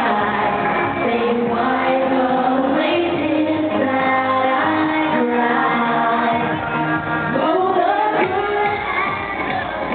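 Live dance-pop music with a female singer's voice holding and gliding between long notes, with a room echo of a large hall.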